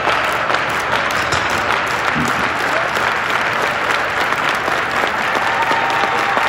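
Live wrestling crowd applauding steadily, with voices calling out among the clapping.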